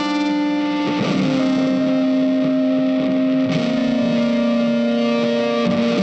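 Background music of long, sustained chords that change about a second in and again past the middle.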